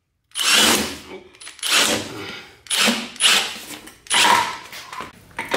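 Impact wrench hammering in a series of bursts of about a second each, spinning the 16 mm top nut off the damper shaft of a Mk7 GTI's stock front strut.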